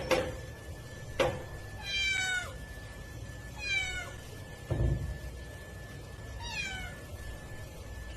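A cat meowing three times, each call short and falling in pitch. A sharp click about a second in and a dull thump about five seconds in are louder than the meows, and a faint steady high tone runs underneath.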